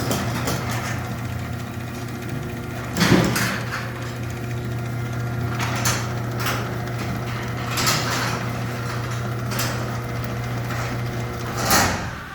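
Chamberlain garage door opener motor running steadily as it drives the door down, with a few knocks from the door along the way. It stops with a thump near the end, as the door reaches the closed position being set.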